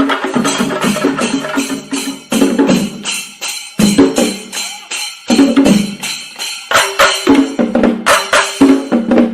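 Chenda melam: Kerala chenda drums beaten with sticks in fast, dense strokes. The playing thins out briefly in the middle, then builds back.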